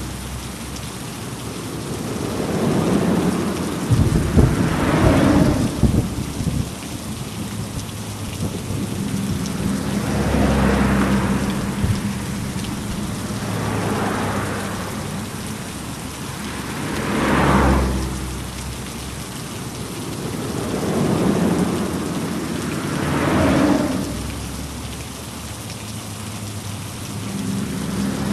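Heavy rain falling steadily, its hiss swelling louder every three to four seconds, over a low rumble of thunder. The thunder crackles loudest about four to six seconds in.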